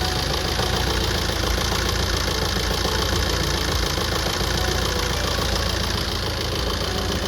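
Tata Safari Storme's VariCOR diesel engine idling steadily with a knocking sound. The knock comes with a misfire and rough idle, traced to a P0203 injector-circuit fault.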